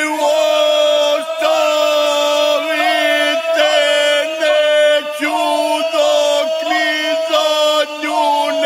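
Ganga, the traditional polyphonic folk singing of the Imotski hinterland: voices holding long notes together, with small wavering ornaments and brief breaks between phrases.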